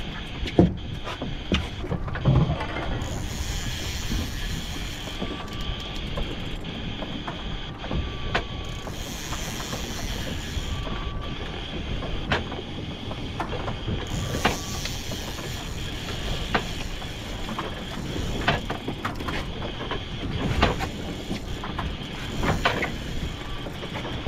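Boat outboard motor running in forward gear under a steady rumble of wind and water, with scattered knocks and clicks from the fishing reel and rod as line is cranked in.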